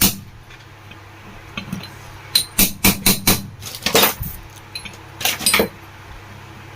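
Hammer tapping on a steel box spanner, driving a table fan motor's bush plate (sleeve bearing) squarely into its housing: about a dozen sharp metallic taps with a brief ring, most of them in quick runs between about two and a half and five and a half seconds in.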